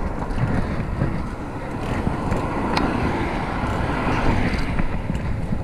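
Steady wind and road rumble from riding a fixed-gear bicycle down a street, picked up by the rider's camera microphone, with car traffic around; the sound swells somewhat in the middle.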